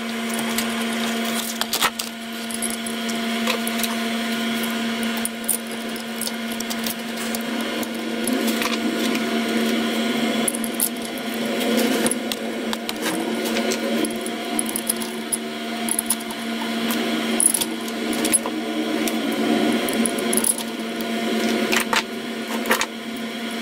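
Metal parts of a home-built hydrostatic motor clinking and scraping as the flange and shaft assembly is handled and turned by hand, over a steady hum that fades about halfway through.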